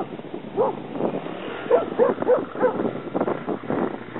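A dog barking about six times in short, uneven bursts.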